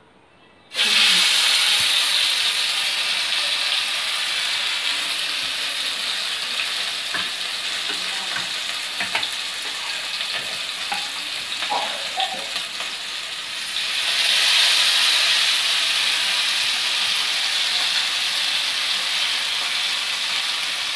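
Catfish frying in hot oil in a pan: a loud, steady sizzle that starts suddenly about a second in, with a few faint clicks midway and a louder surge of sizzling about two-thirds of the way through.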